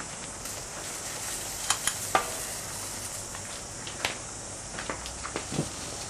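A smoke alarm burning in open flames, its fire fed with potassium nitrate and sugar: a steady hiss with scattered sharp crackles and pops.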